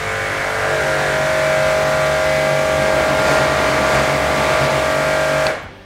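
Sip electric pressure washer's motor and pump running steadily with the water jet hissing, then shutting off suddenly near the end when the spray stops. It runs without pulsing: the swapped-in pressure switch now works.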